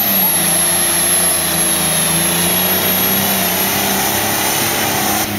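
Diesel pulling tractor running flat out under load as it drags the sled. It makes a loud, steady engine note, with a thin high whine above it; the pitch dips slightly at the start and then holds.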